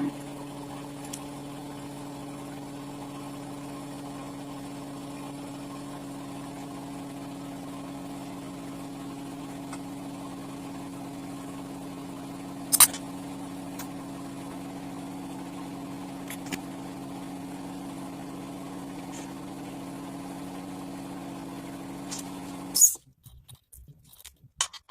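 Honda Win 100 single-cylinder four-stroke motorcycle engine, freshly rebuilt with a bored-up Kharisma piston, idling steadily. A sharp click comes about halfway through, and near the end the sound stops suddenly after a louder click.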